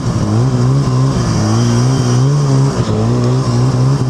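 Polaris Switchback Assault 800 snowmobile's two-stroke twin engine running under steady part throttle, its pitch wavering slightly, with a brief dip about three seconds in. It is under load, towing a broken-down snowmobile on a strap through deep snow.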